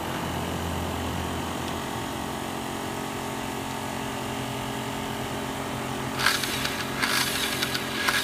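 Makita table-top circular saw running with a steady hum, plus an abnormal noise that sounds as if something is rubbing or hitting. From about six seconds in come three short, harsh bursts of scraping noise, roughly a second apart.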